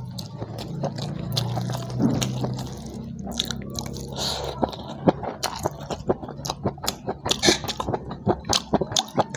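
Close-up chewing of fried fish and rice eaten by hand: wet mouth smacks and clicks, coming thicker in the second half.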